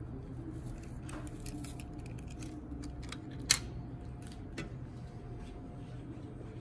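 Light clicks and rustles from toy cars being handled and set among other toy cars on a foil sheet, with one sharp click about three and a half seconds in, over a steady low room hum.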